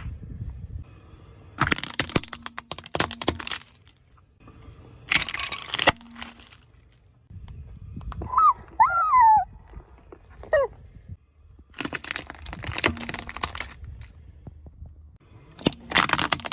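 Objects being crushed under a car tyre: four separate bursts of crunching and crackling, with loud high squeaks in the middle.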